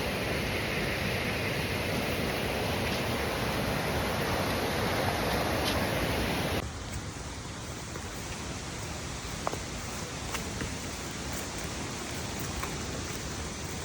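Steady rushing water of a waterfall, an even noisy rush. About halfway through it drops suddenly to a quieter, duller rush.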